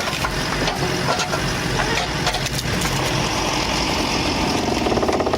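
Engine-driven hydraulic log splitter running steadily as it works a large log, with scattered sharp cracks over the engine hum.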